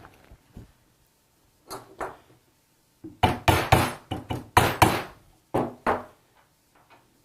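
Metal pump parts and hand tools knocking and clinking during pump reassembly. Two knocks come about two seconds in, then a quick run of about ten sharp knocks and clinks with a short ring.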